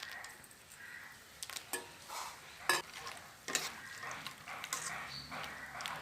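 A spoon stirring soya chunks in a pot of water, with scattered light clinks and knocks of the spoon against the pot.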